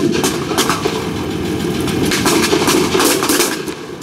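M20 armored car's engine running close by, a steady rumble, with scattered knocks and rustling near the microphone.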